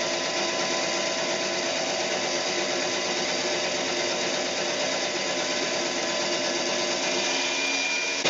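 Floor-standing bandsaw running steadily as its blade cuts through a board of reclaimed pallet wood.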